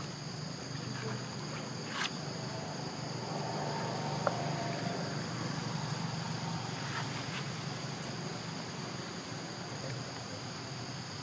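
Steady high-pitched insect chorus over a low steady hum, with a few faint clicks.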